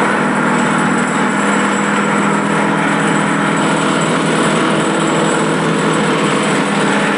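Stainless steel impact pulverizer (herb grinding mill) running steadily, a loud, even mechanical whir with a steady hum.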